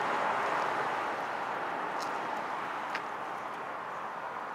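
Steady outdoor rushing noise of city surroundings, slowly fading, with two faint clicks about two and three seconds in.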